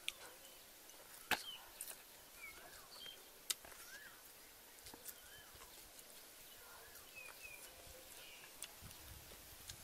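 A bird calling over and over in the forest, a short whistled phrase that rises and falls, repeated about every second or so. A few sharp clicks cut across it, the loudest about a second in and another a few seconds later.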